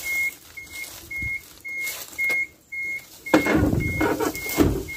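Electronic warning beeper sounding a short, high beep about twice a second without a break. From about three seconds in, loud rubbing and rustling of cloth against the microphone.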